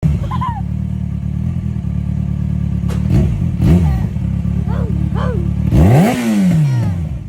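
Engine idling steadily, revved twice: a short blip about halfway through and a fuller rev near the end that climbs and falls back to idle.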